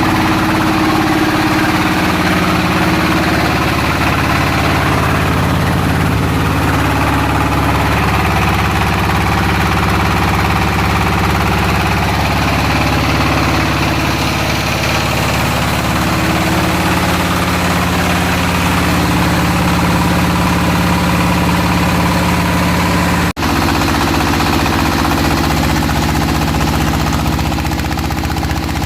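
Floating fish-feed pellet extruder machine running steadily, its drive giving a constant engine-like hum with a rattling knock, broken by a momentary dropout about two-thirds of the way through.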